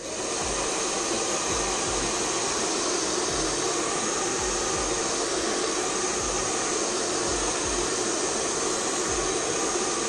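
A small crafting heat gun and a hair dryer blowing at once, switched on together at the start and running steadily as one even, loud rush of air.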